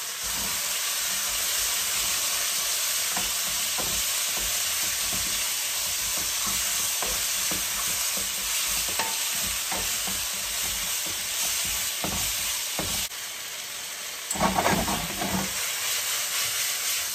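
Chicken wings frying in hot oil in a stainless skillet on a high gas flame: a steady sizzle, the skin crisping, with scattered knocks of a spatula stirring. Near the end the sizzle dips briefly, then the pan is lifted and shaken over the burner, adding a louder clatter.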